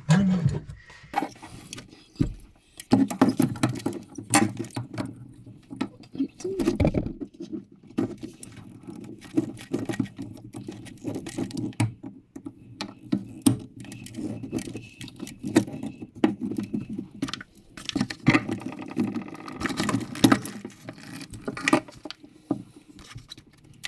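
Irregular clicks, knocks and rattles of tools and plumbing fittings being handled while under-sink water valves are being replaced.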